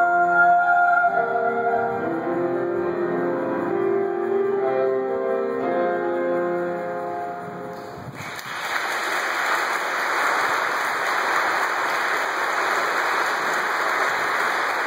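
A young female solo singer finishes a held note about a second in, and an instrumental accompaniment plays closing chords that die away. From about eight seconds in, the audience applauds steadily.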